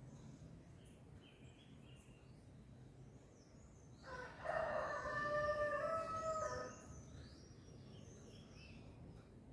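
A rooster crows once, a single drawn-out crow of about two and a half seconds starting about four seconds in. Small birds chirp faintly around it.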